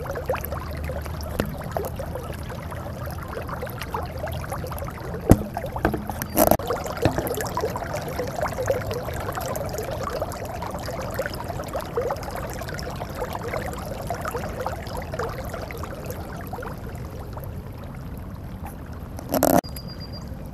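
Rain runoff pouring steadily out of a French drain's outlet pipe through a curb opening and splashing into the street gutter, the drain carrying off a strong flow collected from the yard. A few sharp knocks in the middle and a short bump near the end.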